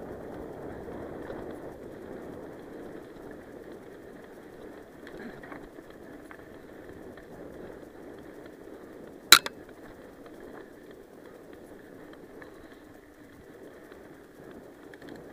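Mountain bike rolling fast over a sandy dirt trail: a steady rush of tyre and trail noise. About nine seconds in, a sharp knock is the loudest sound, followed by a smaller one just after.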